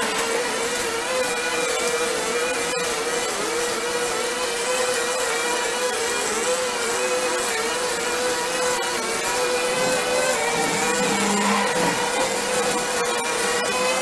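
A backpack brush cutter's small petrol engine running steadily at high speed while cutting weeds, its pitch wavering slightly under the changing load.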